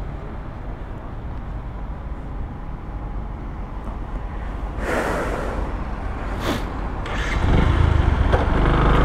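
Motorcycle running along at low speed with a steady low rumble of engine and wind. A brief whoosh of a passing vehicle comes about five seconds in and another shortly after, and the low rumble grows louder about seven and a half seconds in.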